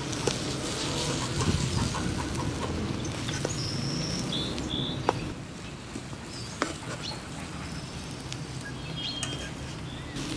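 Oil sizzling and bubbling around a kookoo sabzi frying in a pan over a wood campfire, with a few sharp clicks and short bird chirps.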